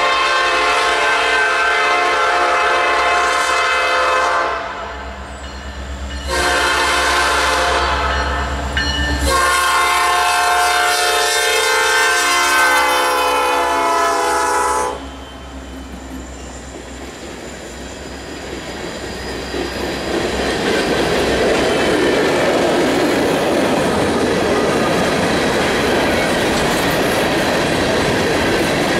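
Air horn of a CN SD70M-2 diesel locomotive blowing two long blasts, the second about twice as long as the first, with the locomotive's low engine rumble under the start of the second blast. About fifteen seconds in the horn stops and the open-top hopper cars roll past with steady wheel noise and clickety-clack that grows louder near the end.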